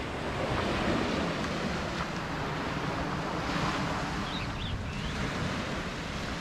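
Small sea waves washing steadily onto a sandy beach, with wind rumbling on the microphone. A few faint high bird chirps come about four seconds in.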